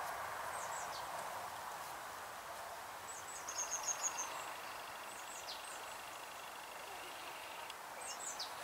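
Small birds chirping in the background: scattered high chirps and quick falling notes, with a fast run of about six chirps around three and a half seconds in, over a steady hiss.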